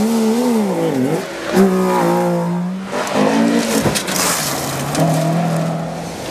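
Rally car engines revving hard on a gravel stage, their pitch rising and falling as the cars slide through bends, with a short sharp crack about one and a half seconds in. Gravel sprays from the tyres around four seconds in.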